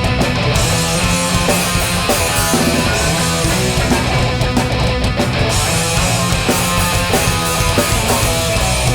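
Live hardcore punk band playing loud: distorted electric guitars, bass and drums with crashing cymbals, an instrumental passage with no singing.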